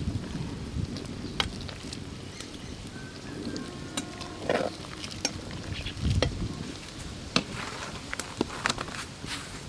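A metal ladle stirring simmering moringa-leaf sambar in a clay pot, with scattered sharp clicks and taps through the stirring.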